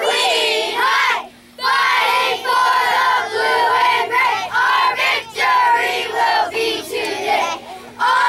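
A crowd of voices shouting and chanting together in a continuous din, breaking off briefly about a second in and then starting again.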